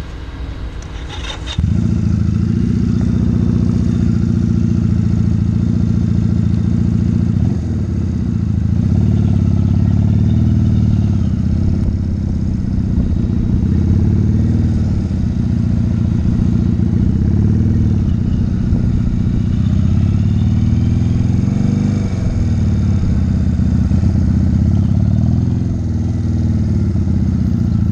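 1985 Honda Rebel 250's air-cooled parallel-twin engine: a couple of clicks, then about a second and a half in it pulls away and runs steadily while the bike is ridden slowly, the throttle rising and easing a little.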